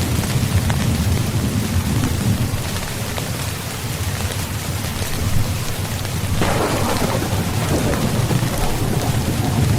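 Steady heavy rain with a continuous low rumble of thunder. About six seconds in, a sharper peal of thunder breaks in and rolls on.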